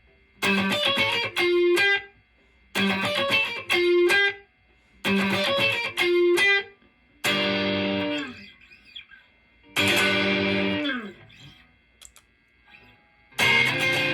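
Solo electric guitar through effects playing the same short picked phrase three times, each lasting about a second and a half with a pause between. Two chords are then struck and left to ring and fade, and near the end it breaks into loud, continuous strumming.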